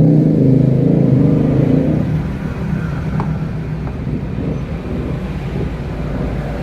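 A motorcycle engine running, loud for about two seconds and then dropping to a lower, rougher running sound.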